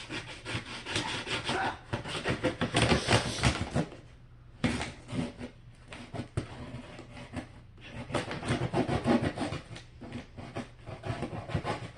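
A large shipping package being cut and torn open: a blade scraping along tape and cardboard, with rubbing and tearing in quick, irregular strokes and a short pause about four seconds in.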